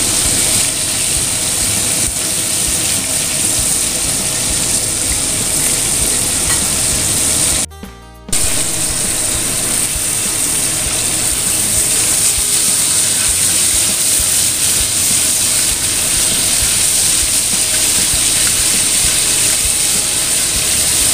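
Breaded chicken pieces deep-frying in hot oil in a wok, a steady loud sizzle. The sound cuts out for about half a second around eight seconds in.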